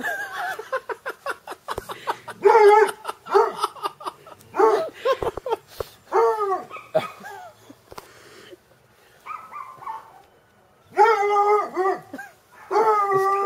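Coonhound barking and baying at a cat: a quick run of short yelps at first, then single bays that drop in pitch, and two long drawn-out bays near the end.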